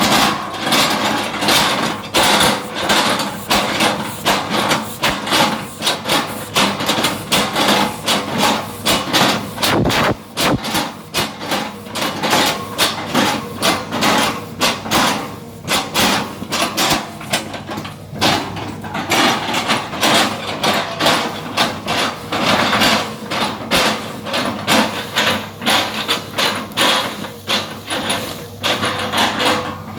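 Hydraulic excavator with its diesel engine running steadily under a rapid series of knocks and clanks, several a second, that go on throughout.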